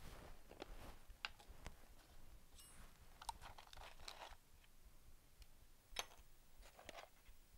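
Faint, scattered clicks and light scrapes of a metal spatula working against a plastic reagent bottle and a glass beaker as white powder is scooped and added; the sharpest click comes about six seconds in.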